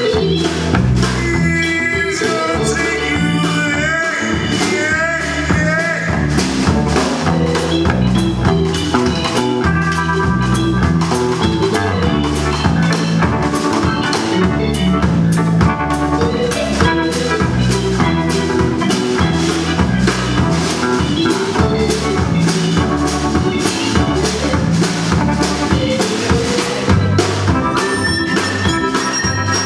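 Indie rock band playing live: drum kit keeping a steady beat under bass, electric guitar and keyboard.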